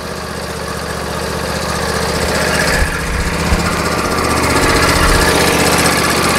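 Briggs & Stratton 22 hp OHV engine of a John Deere LA145 lawn tractor running steadily with a tapping, knock-like noise, which the owner takes for valves that need adjusting. It grows gradually a little louder.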